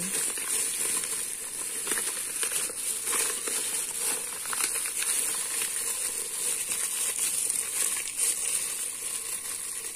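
Plastic crinkling and rustling as a hand wrapped in a plastic bag squeezes small coconut milk packets empty, an irregular crackle throughout.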